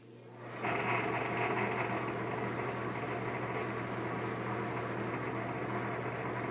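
Bathroom ceiling exhaust fan starting up in the first second, then running with a steady hum over a noisy whir. The owner puts the noise down to something loose or worn-out bearings.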